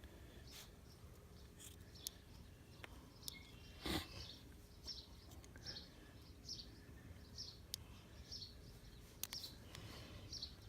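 A bird chirping over and over, about one short high chirp a second, with scattered faint clicks and one louder rustling noise about four seconds in.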